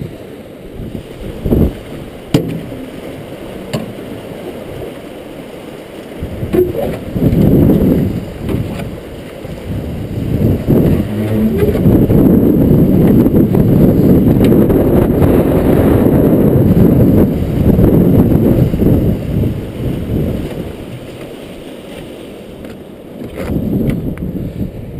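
Rotary screw fish trap turning in a river: water churning and splashing through the spinning cone and live box, swelling to its loudest in the middle. A few sharp knocks near the start.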